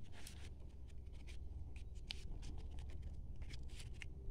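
Light, irregular rustling and crinkling of hands rolling and folding a green strip into a small seedling cup, over a faint steady low hum.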